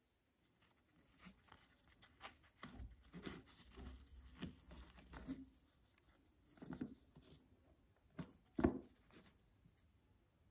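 Roti being torn by hand and used to scoop matar paneer gravy: a faint, irregular run of soft crackles and small wet clicks, with the loudest click near the end.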